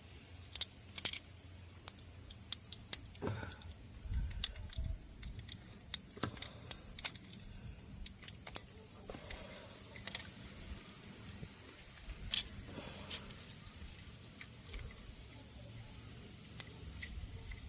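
Scattered small clicks, taps and rattles of hands handling taped wiring and a plug connector, with a few soft thumps about four to five seconds in.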